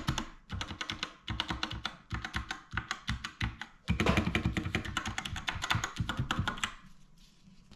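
Fast typing on a NOS C450 60% keyboard, a quick run of key clicks that stops about seven seconds in.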